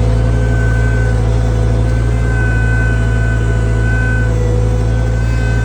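Skid steer engine running steadily under work, with a high whine that wavers slightly in pitch.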